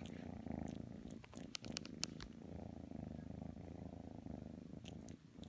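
Kitten purring steadily, close to the microphone, the purr dipping briefly between breaths, with a few small clicks about a second and a half to two seconds in.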